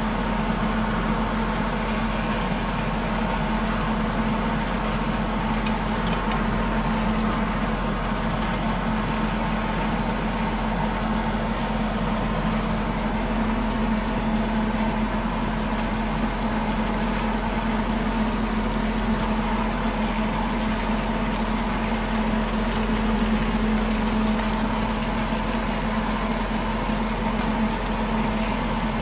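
A steady machine hum with a constant hiss, unchanging throughout.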